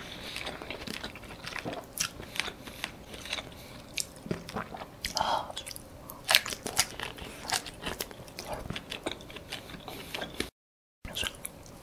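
Close-miked eating: a man biting and chewing thick grilled squid, with many short, sharp wet clicks and smacks of the mouth at irregular spacing. The sound drops out to silence for about half a second near the end.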